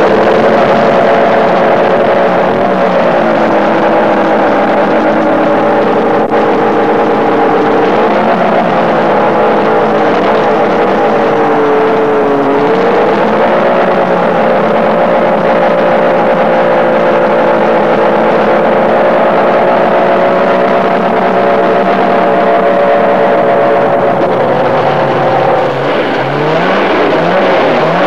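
Two-stroke racing snowmobile engines running at high revs, a steady high whine whose pitch wavers a little. Near the end another engine revs up several times in quick succession.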